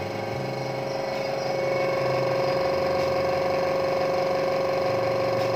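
Izumi Max OM 0724 24-litre oil-less air compressor running, its motor-driven pump giving a steady hum with a high whine. It grows a little louder over the first two seconds, then runs evenly.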